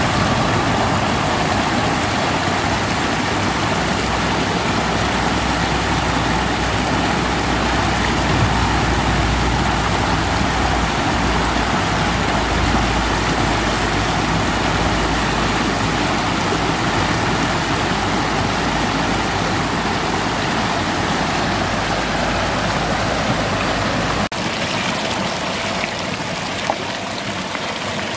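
Water rushing over a low concrete river weir and churning in the shallows below: a loud, steady rushing noise with a deep rumble underneath. About 24 seconds in, the rumble drops away abruptly and the rushing carries on a little quieter and closer.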